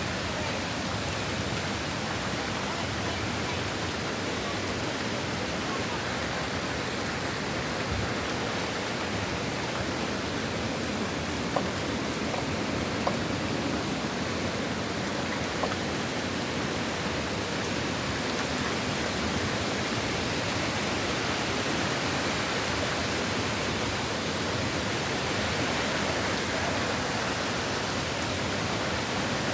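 Steady, even rushing noise of stormy weather ahead of a hurricane, as the wind builds. A few faint clicks come about halfway through.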